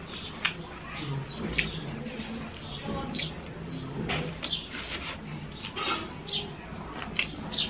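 Close-up chewing and lip-smacking from someone eating rice and sukuti (dried meat) by hand: a string of short, wet mouth clicks and smacks.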